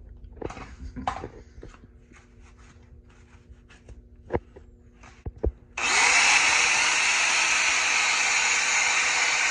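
A few light knocks and clicks of handling, then a little over halfway through an angle grinder with a wire cup brush starts and runs steadily on a steel trailer axle. It is scouring off paint and mill scale down to bare metal to prepare it for welding.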